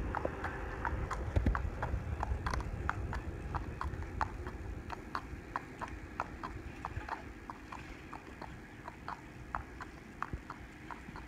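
Thoroughbred horse's hooves clip-clopping on asphalt at a walk, a steady beat of hoof strikes that grows fainter as the horse moves away.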